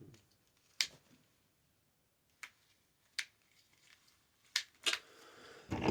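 About five sharp, separate clicks and taps from small hard objects being handled, with near quiet between them.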